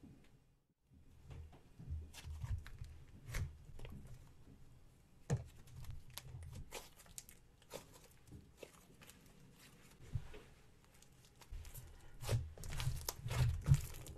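Thick slime being stretched and squished by hand, giving irregular sticky crackles and pops. The crackling grows denser and louder near the end.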